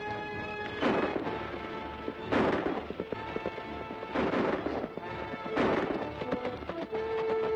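Four gunshots, about a second and a half apart, each with a short echo, over background music with held notes.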